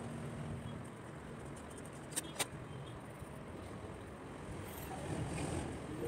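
Graphite pencil strokes on sketchbook paper over a steady low background noise, with two quick clicks about two seconds in.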